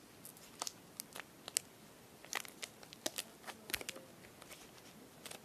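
Chocolate bar wrapper crinkling and crackling in short, irregular bursts as it is handled and pulled open.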